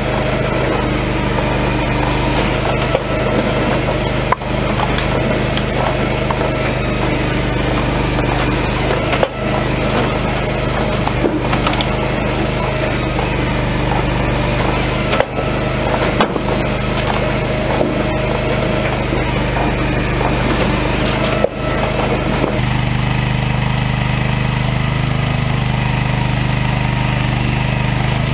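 Regon R1 firewood processor working through logs: a steady engine hum under wood cracking and splintering, with a sharp knock every few seconds. Near the end the sound changes to a steadier, deeper engine hum with no knocks.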